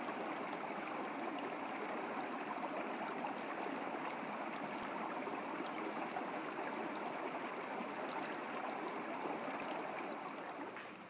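Running water of a stream or creek, a steady rushing that eases down slightly near the end.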